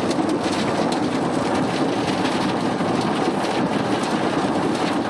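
Swarming insects pelting a car windshield in a dense, rapid patter of tiny impacts that sounds like rain, over steady road and engine noise heard from inside the moving car.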